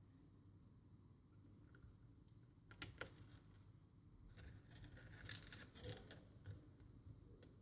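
Faint handling noises of small laptop parts: a couple of sharp clicks about three seconds in, then a short stretch of scratchy scraping.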